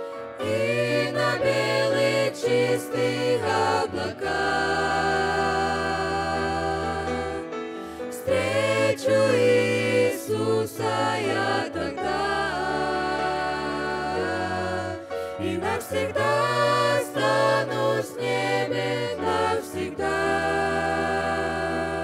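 Mixed youth vocal group singing a Russian-language worship song in harmony into microphones, over long held low accompaniment notes.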